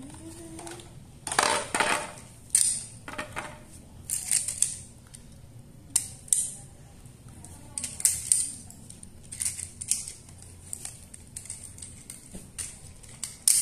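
Hard plastic Playmobil toy parts clicking, knocking and snapping together as a boat trailer is put together by hand, in irregular sharp clicks with a few louder clatters in the first few seconds.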